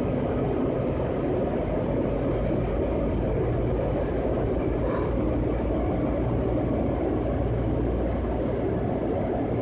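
Washington Metro railcar running between stations, heard from inside the car: a steady rumble of wheels and car noise at an even level.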